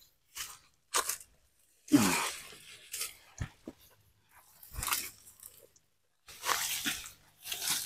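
Small radishes being pulled up by hand from the soil: a string of short rustling, tearing sounds about a second apart as roots and leaves come free, with a couple of sharp clicks between them.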